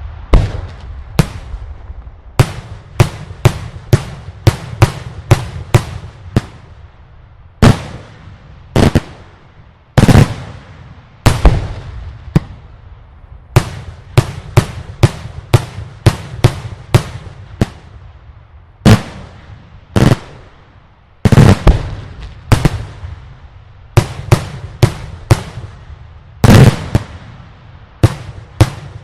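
Daylight fireworks display: loud explosive aerial bursts going off one after another, irregular and at times about two a second, each crack trailed by a short echo over a low rumble, with a brief lull near the end.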